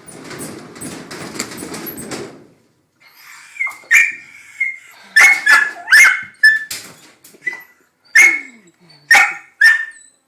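A dog barking in a string of about ten short, high-pitched, yelping barks, agitated by a washing machine going into its spin cycle. The barks start after about two seconds of rattling noise.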